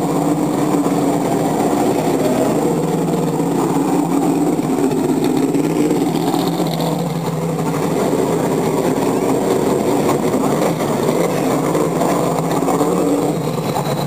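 Corvette C6.R race car's naturally aspirated V8 running steadily at low revs as the car pulls slowly away.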